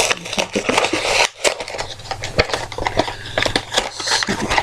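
Mystery-mini blind-box packaging being opened by hand: a quick, irregular run of small clicks, crackles and tearing.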